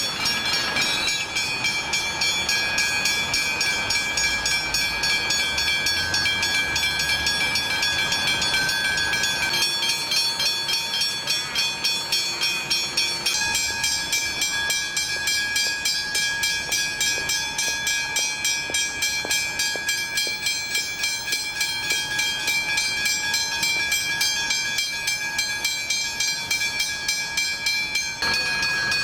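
Railway level crossing warning bells ringing continuously with a rapid, even rhythm while the boom gates are down and the lights flash, signalling an approaching train.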